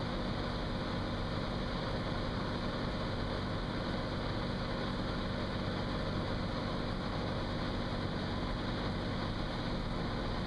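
Cirrus SR22's 310 hp six-cylinder engine and propeller running steadily in flight, heard inside the cabin as an even, unchanging drone.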